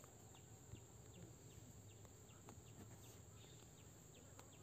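Near silence: faint background hiss with scattered faint short ticks.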